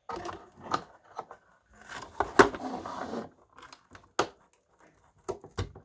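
Glued-in speaker being pried and scraped loose from a vintage radio's case: irregular scraping and crackling with sharp clicks and snaps as the glue gives, the loudest snap a bit over two seconds in.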